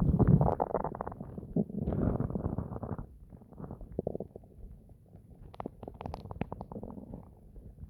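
Distorted human stomach gurgling and rumbling from digestion. It is loud and churning for the first three seconds, then drops to quieter bubbling with scattered small pops.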